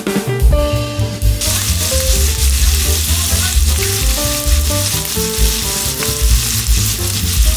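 Onion, garlic and ground pork sizzling as they are stir-fried in a frying pan, a loud steady hiss that starts about a second and a half in. Background music with a steady beat plays underneath.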